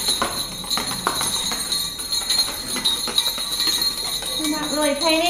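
Jingle bells shaken repeatedly, a steady metallic jingling with quick rattling strikes, used as a test noise for young puppies. A wavering voice-like whine comes in near the end.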